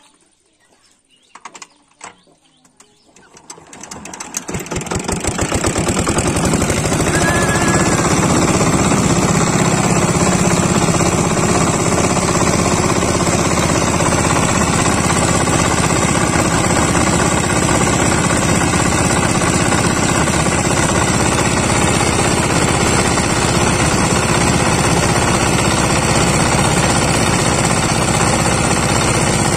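Small 4 hp single-cylinder diesel boat engine starting after a few clicks and catching about three seconds in, its rapid knocking speeding up and growing louder until it settles into a steady, loud, fast-paced running that drives the propeller shaft.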